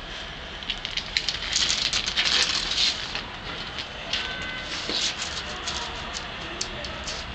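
A Dalmatian sniffing and snuffling close to the microphone: a run of short, noisy breaths and clicks about a second in, louder for a couple of seconds, then again around the middle and in a few clicks near the end.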